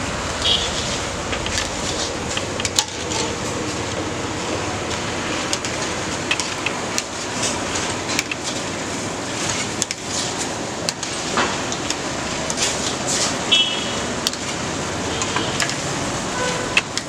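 Hot oil sizzling steadily in a large iron kadai as balls of batter deep-fry, with frequent clinks and knocks of a metal ladle against the pan.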